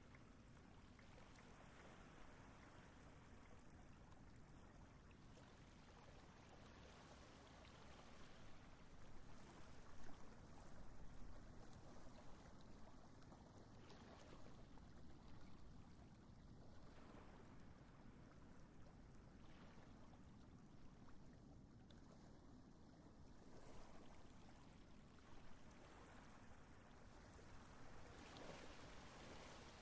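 Near silence: a faint, steady background hiss with no bird calls.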